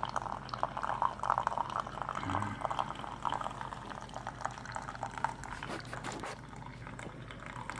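Keurig K-Classic single-serve coffee maker dispensing hot coffee into a mug, the stream splashing and trickling into the cup and growing quieter toward the end.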